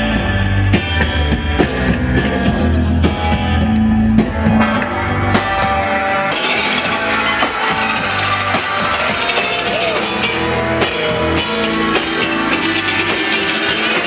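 Rock band playing live: electric guitars over bass and drums, the drums hitting steadily. About six seconds in the sound grows fuller and brighter.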